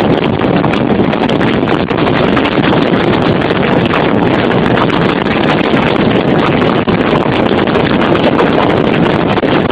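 Loud, steady wind and road noise of a moving car, with wind buffeting the microphone.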